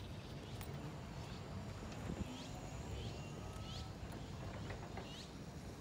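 Small birds chirping in short rising calls over a low, steady outdoor rumble.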